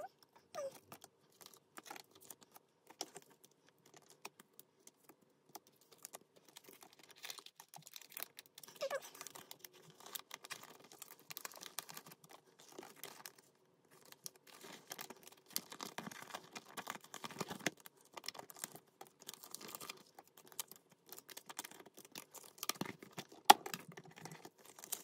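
Photocards being handled and slid into plastic binder sleeves: scattered light clicks, taps and plastic rustling, with a short lull about halfway through.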